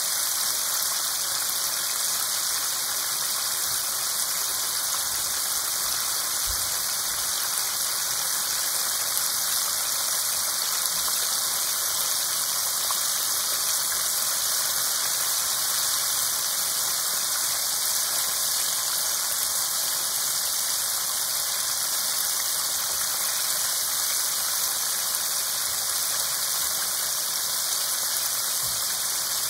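Chicken pieces deep-frying in a wok of hot oil: the steady, dense sizzle of oil bubbling around the pieces.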